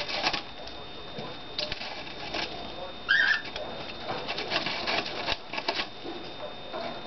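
A pet parakeet pecking and scratching at a styrofoam block, making clusters of quick scratchy clicks, with one short chirp about three seconds in.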